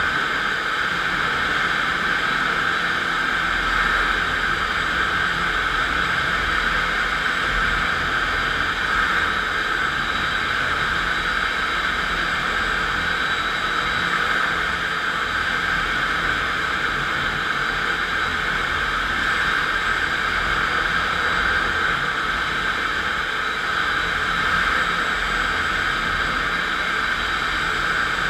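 FastPrep electric concrete floor grinder running steadily under load, its 16-grit diamond grinding plates cutting a concrete floor: an even, unbroken grinding noise with no change in pitch.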